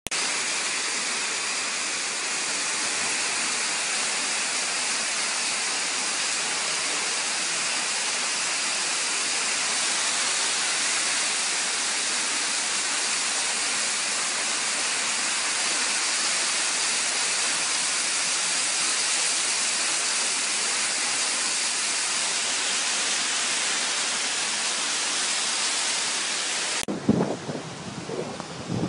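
Heavy rain pouring down, a steady hiss. About two seconds before the end it cuts to wind buffeting the microphone, with surf behind.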